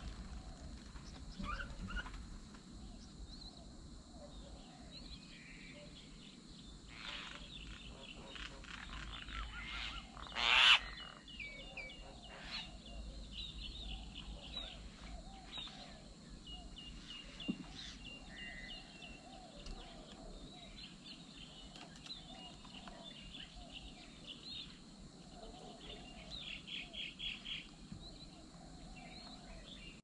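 Several birds chirping and calling around a bird table, with short high notes and trills throughout. One loud, sudden harsh sound about ten seconds in stands above the rest, and near the end a quick chattering run of notes.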